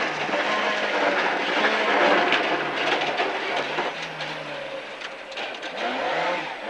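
Ford Escort Mk2 rally car's four-cylinder Pinto engine running hard, heard from inside the cabin over loud road and tyre noise, with a few sharp knocks from the surface. Near the end the engine note changes as the car is set up for a square right-hander.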